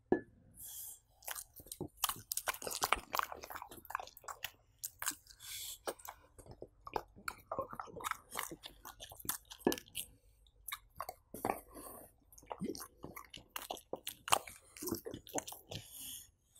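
A French bulldog chewing and biting soft pumpkin cheesecake: a dense, irregular run of smacking and clicking mouth sounds.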